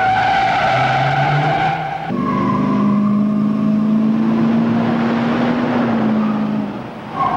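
Car engines running hard and tires squealing in a car chase, with sustained squeals: one for the first two seconds, then another over a steady lower engine tone until shortly before the end.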